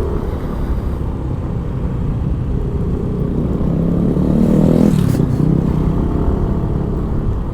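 Yamaha Mio i 125 scooter's single-cylinder engine running under load as it climbs a steep paved road. The engine note rises and grows louder about four to five seconds in, then settles.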